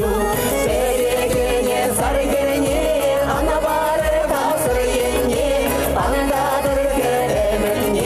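Pop song in Chuvash sung as a duet by a man and a woman over a backing track with a steady beat.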